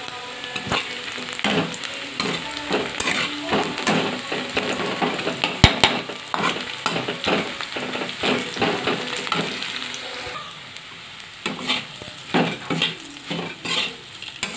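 Sliced onions and green chillies sizzling in a kadai while a metal spatula stirs and scrapes them against the pan, with one sharp clack about six seconds in. After about ten seconds the sizzle quietens and the spatula strokes go on as poha (flattened rice) is stirred into the onions.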